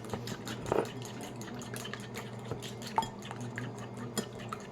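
A metal utensil clinking against a dish in quick, light clicks, roughly five a second, with a couple of louder knocks, over a steady low hum.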